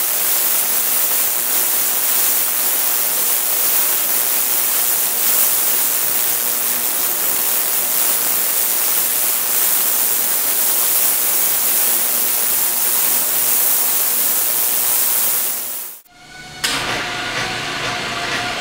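Ultrasonic cleaning tank running: a loud, steady high-pitched hiss from the cavitating cleaning bath. About 16 seconds in it cuts off suddenly, and a quieter steady machine hum with a few held tones follows.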